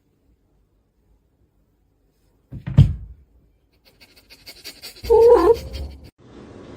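A thump a little under three seconds in, a few light clicks, then one short cry from a pet that rises and falls in pitch.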